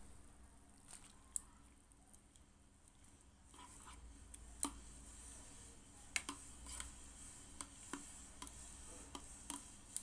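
Metal wire-mesh strainer clinking and tapping against a pot while squid rings are tipped into boiling water: irregular light clicks that start about a third of the way in, over a faint low hum.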